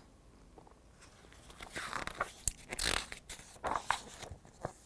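Pages of a picture book being turned: a few soft, brief papery rustles and crinkles.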